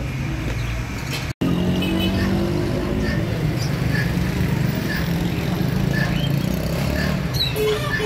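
Street traffic: vehicle engines running steadily, cars and motorcycles, with a short break about a second in. Faint high chirps come through about once a second.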